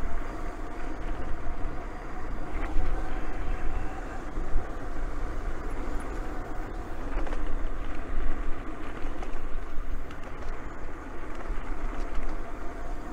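Riding noise of an electric bike on a paved path: wind rumbling on the microphone and tyre hiss, with a faint steady whine underneath.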